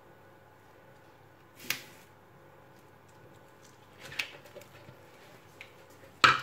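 Silicone spatula working thick cake batter in a metal springform pan: a few short scrapes and soft taps, with a sharp tap against the pan or bowl near the end.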